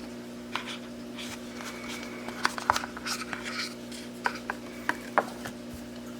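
An unboxing: a run of short rustles, clicks and taps, loudest about two and a half seconds in and again near five seconds. A steady low hum runs underneath.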